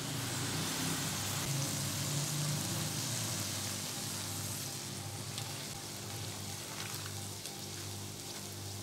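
Okra and potatoes sizzling in oil in a steel kadhai, the lid just lifted after ten minutes of covered cooking on low heat. A steady sizzle that eases a little after about five seconds.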